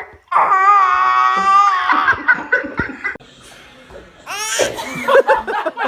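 A baby laughing: a long, high-pitched squeal, then quick bursts of laughter. After a short pause comes another shriek and more rapid, breathy laughter.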